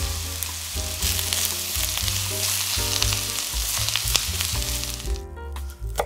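Chicken breasts and sliced onion sizzling in hot oil in a stainless sauté pan, over soft background music with a bass line; the sizzle stops about five seconds in, leaving the music.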